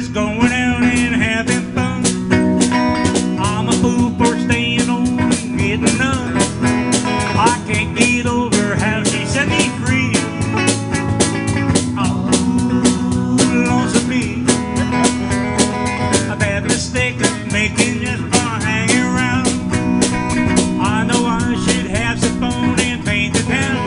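Electric guitar and drum kit playing live: a steady drum beat under sustained and bending guitar notes.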